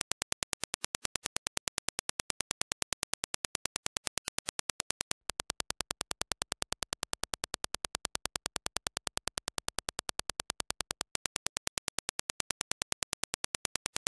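Rapid, evenly spaced test clicks, about ten a second: a Dirac impulse train, first the reference impulse, then the same impulses played through Grado SR80X headphones and recorded on a measurement dummy head, then the reference again. Each switch is marked by a brief break in the clicking.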